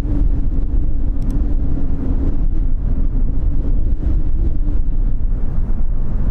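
Strong wind buffeting the microphone as a steady low rumble, with the hum of the ATR 72-500's twin turboprop engines underneath in the first half as the airliner rolls out on the runway after landing; the hum fades about halfway through.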